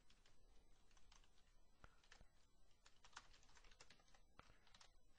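Faint typing on a computer keyboard: quick, irregular keystrokes, several a second, with small clusters of rapid key presses.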